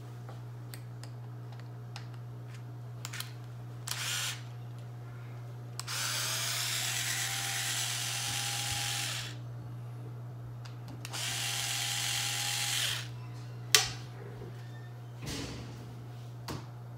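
Small cordless electric screwdriver whirring in two runs, about three seconds and then two seconds long, its motor pitch rising as each run starts, driving screws into an RC truck's hub area. A single sharp click comes just after the second run, with a few lighter clicks of parts and tools being handled around them.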